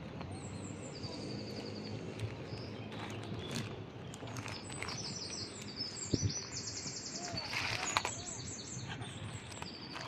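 Small birds chirping in quick high trills, over and over, above a steady low outdoor rumble. A few short rustles and knocks come as the cat noses into a fabric bag, the sharpest about six and eight seconds in.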